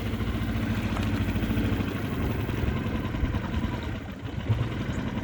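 Boat engine idling with a steady low pulsing hum.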